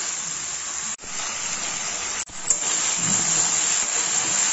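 Diced potatoes sizzling steadily in hot mustard oil in a metal kadai, frying until they turn reddish-brown. The sound cuts out for an instant twice.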